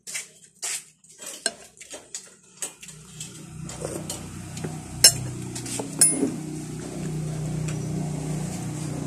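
Eating noises with cutlery clinking: short soft clicks, then a spoon clinking sharply against a dish twice, about five and six seconds in. Under this a steady low hum begins about three seconds in.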